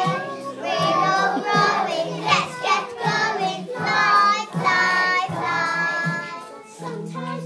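Group of children singing a song in phrases of about a second each, over steady low accompaniment notes.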